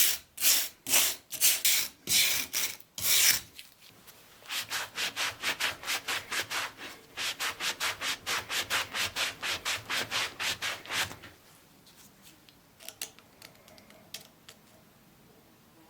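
Back-and-forth hand sanding strokes. They are loud and about two a second at first, then after a short pause faster and quieter at about four a second. They stop about eleven seconds in, leaving a few faint ticks.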